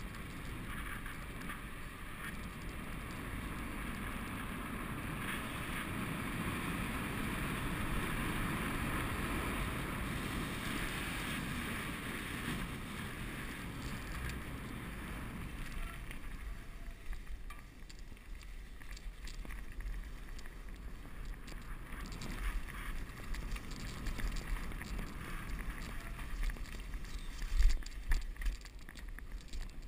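Bicycle ride: wind rushing over the microphone and tyres running on asphalt. About halfway through this gives way to quieter, uneven rolling on a dirt forest trail with scattered knocks and rattles, the loudest near the end.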